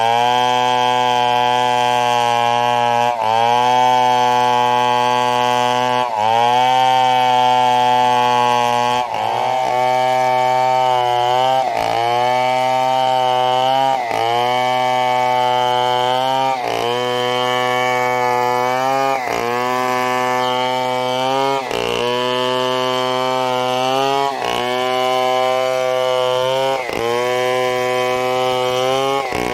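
Two-stroke chainsaw running at high speed while cutting a fallen coconut trunk. Its pitch dips sharply and climbs back about every two and a half seconds as the cut loads it.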